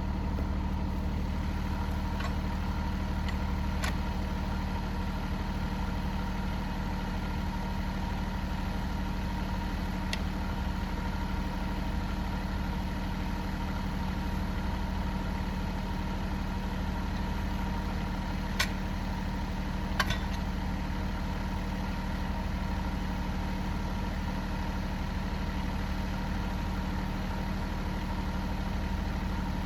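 Engine of the log-handling machine idling steadily, with a few sharp knocks over it, two louder ones close together a little past the middle.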